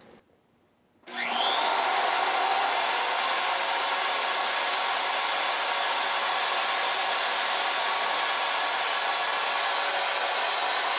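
Corded DeWalt electric drill spinning up about a second in, then running steadily at full speed.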